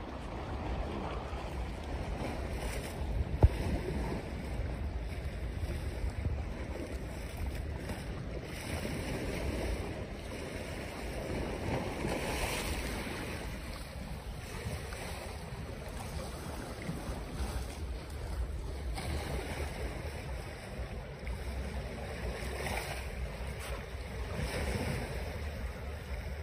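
Choppy sea water washing against a stone breakwater, with wind noise on the microphone: a steady rushing noise. One brief knock about three and a half seconds in.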